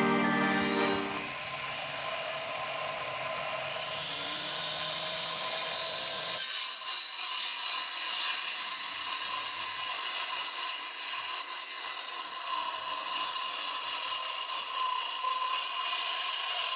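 Homemade saw powered by a blender motor, spinning its 7-inch blade through a belt and pulleys, with a high steady whine that rises over the first few seconds. The whine carries the sound of the blade cutting wood.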